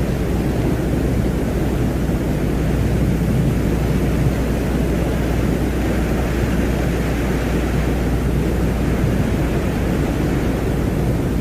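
Steady deep rushing rumble, an unchanging noise drone presented as the sound of the planet Venus.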